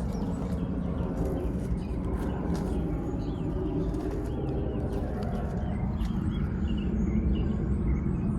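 Outdoor background: a steady low rumble with birds chirping and cooing over it.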